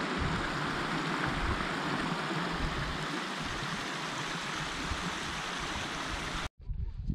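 Shallow, rocky mountain stream flowing over stones, a steady rush of water that cuts off abruptly about six and a half seconds in.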